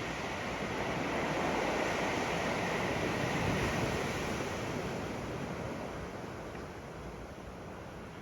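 Ocean waves washing up on the sand: a rushing surf that swells over the first few seconds and then slowly fades.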